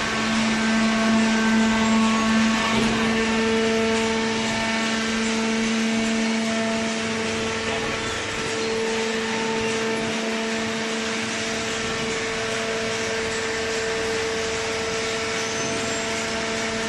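Fully automatic hydraulic cardboard baler running: a steady machine hum with a held tone over an even rushing noise.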